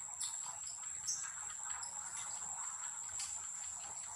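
Insect making a steady, high-pitched drone that holds unbroken throughout, with a few brief chirps over it, about a quarter of a second in, about a second in and past three seconds.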